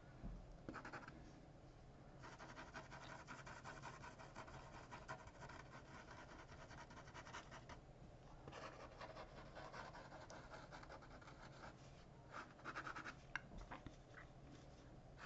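Ink pen scratching across paper in quick, faint strokes, in runs of several seconds with short pauses between, as lines and hatching are drawn.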